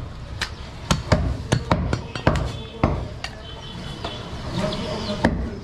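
A butcher's cleaver chopping through goat meat and bone onto a wooden block: a run of sharp, irregular chops, several a second at times, with a pause before one last chop near the end.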